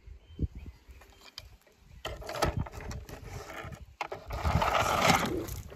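Toy cars being handled: a few light knocks, then irregular clattering and rustling noise from about two seconds in, loudest about four to five seconds in.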